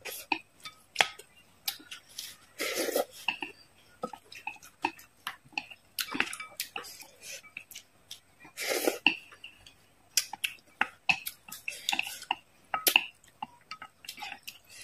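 Close-up mouth sounds of eating: wet chewing and smacking, with a few short slurps as broth is sipped from a wooden spoon. Chopsticks and spoon click lightly against a glass bowl in between.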